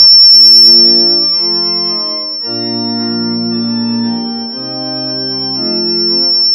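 Church organ playing a postlude: sustained chords moving steadily from one to the next, with bass notes joining about two and a half seconds in. A steady high-pitched tone runs underneath throughout.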